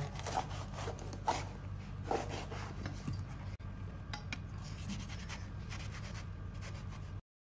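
Chinese cleaver cutting and scraping through a bitter melon on a wooden chopping block: a few soft knocks and scrapes about a second apart over a low steady hum, with everything stopping abruptly near the end.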